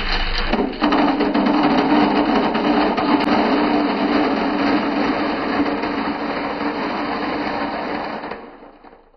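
A large batch of marbles pouring out of a steel mesh strainer into a glass fishbowl: a dense, continuous clattering rattle of balls striking the glass and each other. It starts about a second in and dies away near the end as the strainer empties.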